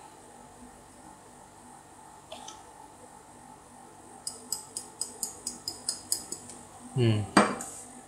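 Stainless steel coffee catch cup tapped repeatedly against a plastic tray to knock out the last of the freshly ground coffee: about a dozen quick, light clicks over two seconds, starting about halfway through.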